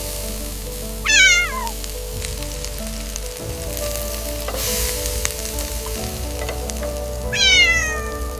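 A cat meowing twice, each meow falling in pitch, the second a bit longer, over background music and a steady hiss.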